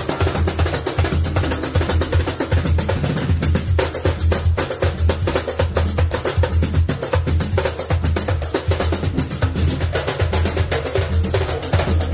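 Background music with busy percussion: a fast, steady drum beat over a strong bass.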